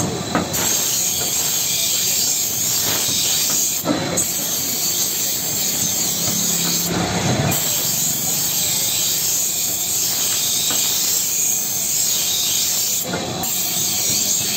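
Steel knife blank cut from an old band saw blade ground against a belt-driven grinding wheel: a steady harsh hiss, broken briefly a few times.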